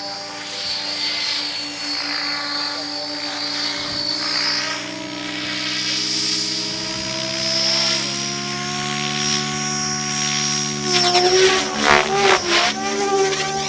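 RC helicopter in flight: a steady whine of its motor and rotor whose pitch drifts slightly. From about eleven seconds in it gets louder and pulses rapidly.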